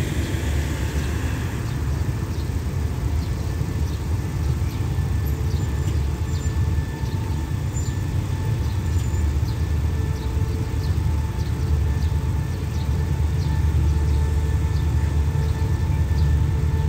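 Diesel locomotive approaching at low speed, its engine rumble and whine slowly growing louder.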